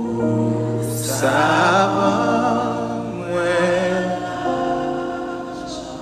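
Christian worship music: a singing voice with vibrato over held instrumental chords and a sustained bass note.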